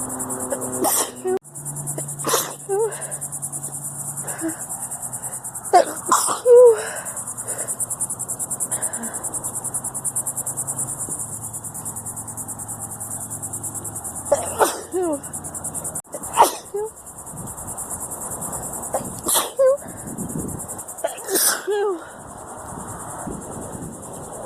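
A woman sneezing over and over in an allergy fit, about eight sneezes with pauses of a few seconds between some of them. A steady high-pitched buzz runs underneath.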